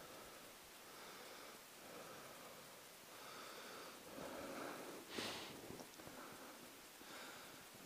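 Faint footsteps crunching through snow at a walking pace, about one step a second, with a louder brushing scrape about five seconds in.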